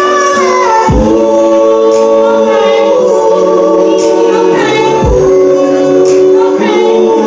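Live R&B music: several voices singing long held notes together in harmony over a slow drum beat.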